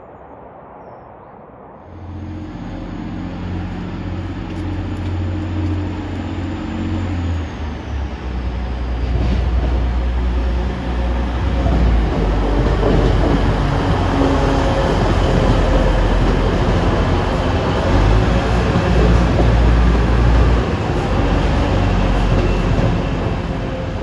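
TransPennine Express Class 185 diesel multiple unit moving through the station under power, its Cummins diesel engines running with a deep, steady rumble. The sound starts abruptly about two seconds in, builds to loud over the next several seconds, and eases slightly near the end.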